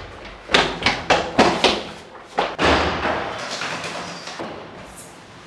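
Hurried running footsteps: a quick, uneven run of thuds on a hard floor in the first two and a half seconds, then a longer swishing noise that fades away.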